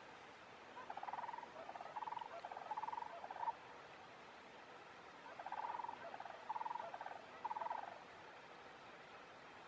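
An animal calling: two series of three or four short, rattling notes, the second series starting about two seconds after the first ends.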